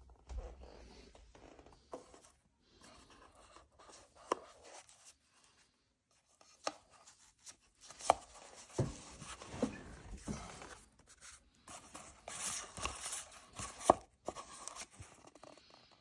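Hands handling a small cardboard watch box: scattered rustling, scraping and light taps as the lid comes off and the foam pad is lifted out. There is a sharp tap about four seconds in and another near the end, and the handling is busiest in the second half.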